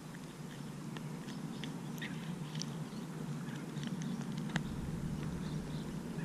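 Small, irregular clicks and rustles of fingers working a hook and soft-plastic lure out of a redfin's mouth, over a steady low hum.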